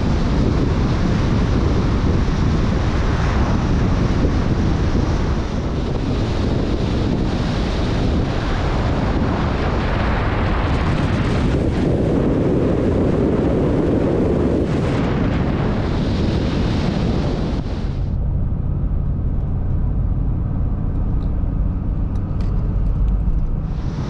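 Wind rushing over a camera on the outside of a moving vehicle at highway speed, a loud steady roar of wind and road noise. About 18 seconds in it gives way to a quieter, steady low drone of the engine and tyres heard from inside the cab, and the wind rush returns near the end.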